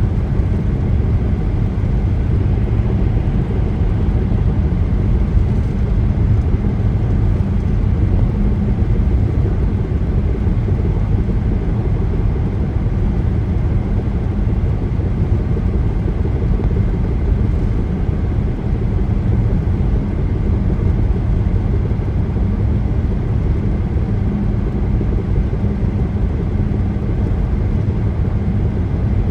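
Car driving at highway speed: a steady low rumble of tyres on the road with a faint steady engine hum, heard from inside the vehicle.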